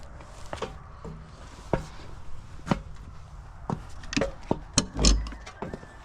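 A series of scattered sharp knocks and clacks, roughly one a second and closer together near the end, with a dull low thump about five seconds in.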